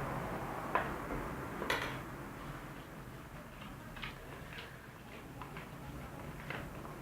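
A spoon knocking and clicking against a container while stirring a batch of slime of white glue and laundry detergent: a handful of short, scattered taps, the sharpest about two seconds in.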